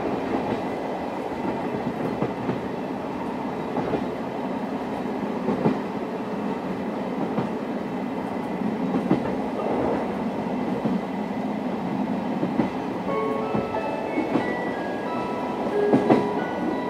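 Steady running noise inside a Suhafu 42 old-type passenger coach, with its wheels clicking over rail joints every few seconds. Near the end a melody of short, clear notes starts playing over the running noise.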